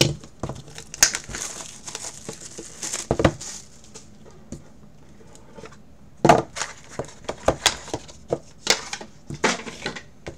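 Plastic shrink wrap being torn and crinkled off a sealed cardboard trading-card box, then the box being opened, in sharp crackles and snaps. The sounds come in two clusters with a quieter lull in the middle.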